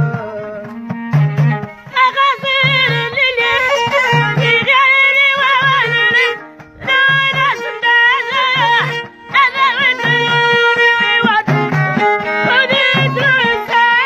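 Middle Atlas Amazigh folk music: a violin played upright and a lotar lute carry the melody over a steady frame-drum (bendir) beat, and a voice comes in singing about two seconds in, in phrases with short breaks.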